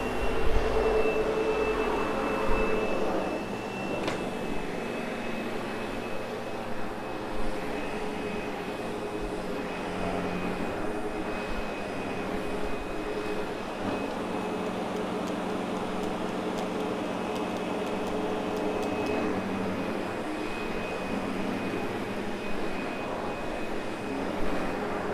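Sebo X8 upright vacuum cleaner running steadily over carpet, a constant motor whine with a thin high tone. It is a little louder in the first few seconds.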